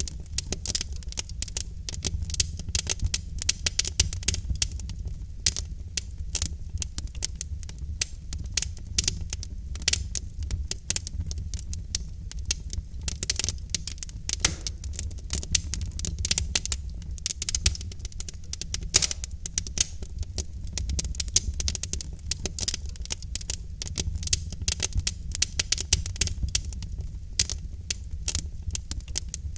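Wood logs burning in a fireplace, crackling with rapid irregular pops and snaps over a steady low rumble of the flames.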